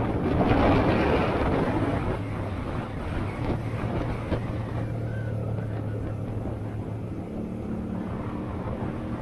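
Honda Shadow 125's small V-twin engine running steadily under way, with wind rushing over the microphone. It is louder for the first two seconds.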